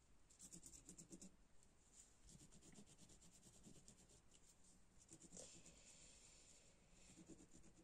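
Faint scratching of a thick Stabilo Woody 3-in-1 pencil rubbed over a burlap-covered journal page, in quick short strokes at first and a longer stroke about five seconds in.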